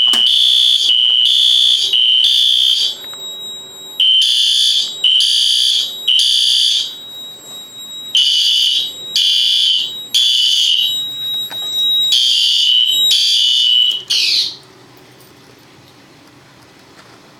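Fire alarm sounder beeping a loud, high tone in the temporal-three evacuation pattern: three half-second beeps, a pause, repeated four times. It cuts off partway through the last beep, about fourteen and a half seconds in.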